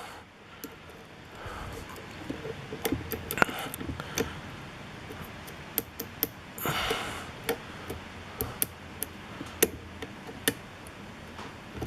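Lock pick and tension wrench working the pins of a security-pinned TESA pin-tumbler lock cylinder: scattered small metallic clicks and light scraping at an uneven pace, with a brief hiss a little past halfway through.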